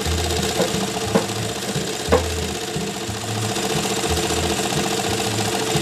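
Sunstar industrial high-speed sewing machine running steadily while its bobbin winder spins a bobbin full of thread. A low hum comes and goes, and there are a few short clicks in the first two seconds.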